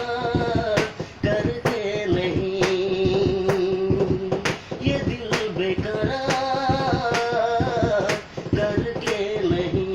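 A man singing a Hindi film song in long, wavering held notes over a steady beat of sharp clicks, about one a second.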